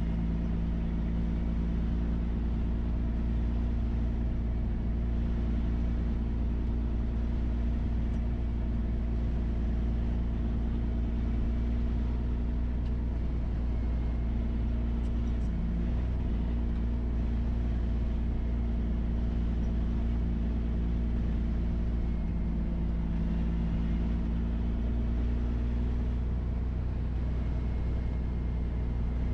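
Loaded dump truck's diesel engine running steadily at low road speed, a deep drone with a steady hum of engine tones that dips briefly about halfway through.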